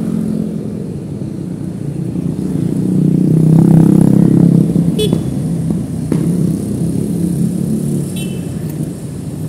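Motorbike engines and street traffic heard from a moving motorbike, swelling loudest about three to four seconds in as another scooter passes close alongside. A short high horn beep sounds about five seconds in.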